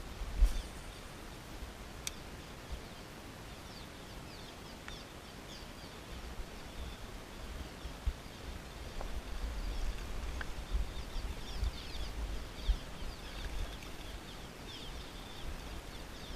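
Small birds chirping, many short falling chirps that come thicker in the second half, over a steady outdoor hiss by a creek. A low rumble comes and goes underneath, and there is a single sharp knock about half a second in.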